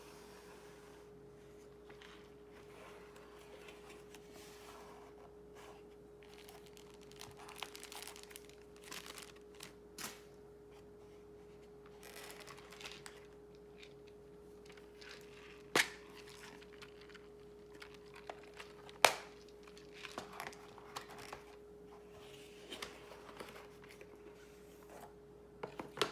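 Faint handling noise: scattered rustling and crinkling with two sharp clicks about three seconds apart past the middle, over a steady electrical hum.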